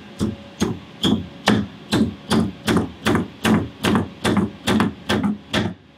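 Steel claw hammer driving a nail into a wooden block: about fifteen quick, even blows, roughly two and a half a second, each a sharp crack with a wooden thud, stopping just before the end.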